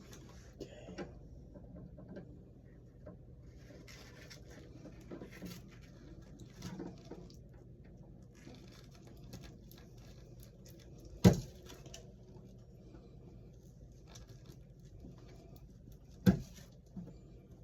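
Small handling noises of wiring work at a wall switch box: quiet scraping and tapping over a faint hum, with two sharp clicks, one about eleven seconds in and another about sixteen seconds in.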